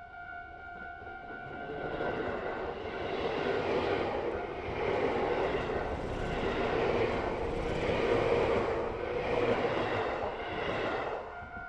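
Electric commuter train running past over the level crossing: its rumble and wheel noise build up about two seconds in, swell and ease every second or so as the cars go by, and fall away just before the end. The crossing's warning bell keeps ringing faintly under it.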